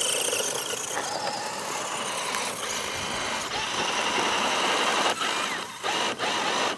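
Whine of the small electric motors and drivetrains of radio-controlled scale crawler trucks driving over sand, with the sound dipping out briefly a few times near the end.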